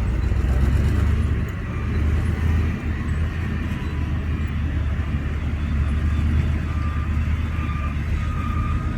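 Heavy earthmoving machinery's diesel engines running with a deep, steady rumble. About two-thirds of the way in, a reversing alarm starts sounding short, repeated beeps.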